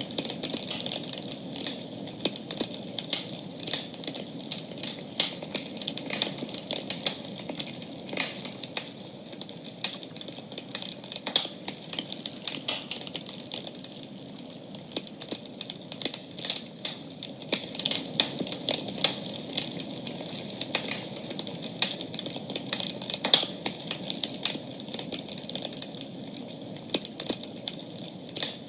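Wood campfire crackling, with irregular sharp pops and snaps over a soft steady hiss.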